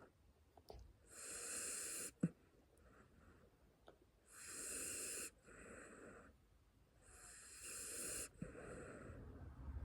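Sleeping puppy snoring: three long, noisy breaths about three seconds apart, each followed by a softer one. There is a single sharp click about two seconds in.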